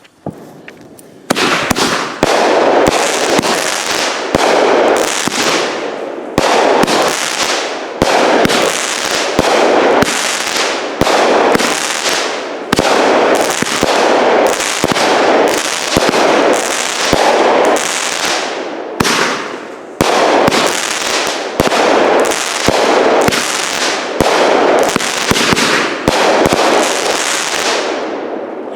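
Phantom 'Molotov Cocktail' 200-gram repeater cake firing a long run of loud shots, about one a second, each fading before the next. It starts about a second in and ends near the end.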